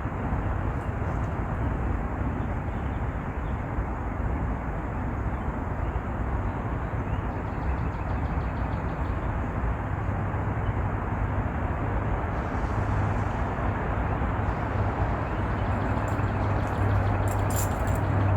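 Steady low rumble of outdoor background noise with a low hum, growing slightly louder toward the end.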